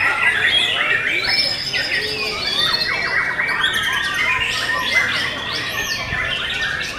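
White-rumped shamas (murai batu) singing, several songs overlapping in a dense, continuous mix of loud whistled phrases, quick sweeps and rapid chattering notes.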